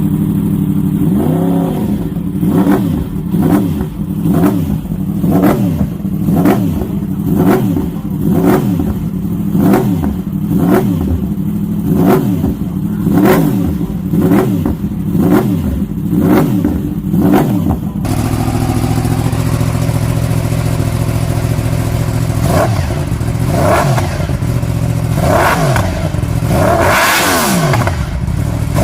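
Yamaha R1 inline-four sportbike engine with an aftermarket exhaust, revved in quick repeated blips, about one a second, each rising and falling back. After a sudden cut, another R1 idles and is blipped a few times, with the highest rev near the end.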